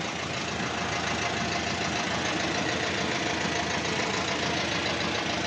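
Volkswagen Kombi engine idling steadily while the van stands stopped.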